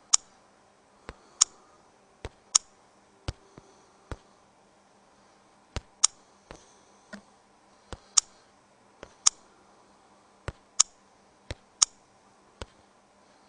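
Sharp clicks from working the phone's home-screen menus, about twenty at irregular spacing and often in quick pairs.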